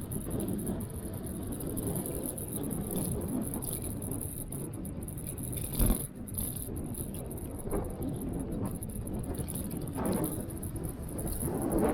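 Electric scooter riding along with a steady rush of wind and road noise and a loose rattling from the scooter. A single sharp knock about halfway through, as from a bump.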